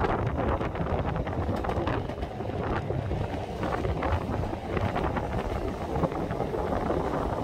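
Wind buffeting a smartphone microphone over the running rumble of a moving double-decker heritage tram, with a few scattered clicks from the tram.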